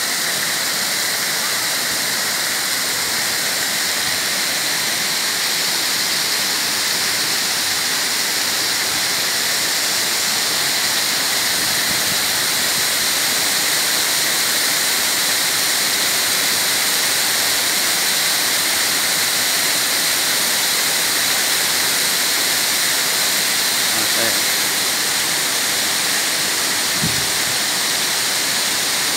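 Pongour Falls, a wide tiered waterfall, pouring over rock ledges close by: a steady, even rush of falling water that never lets up.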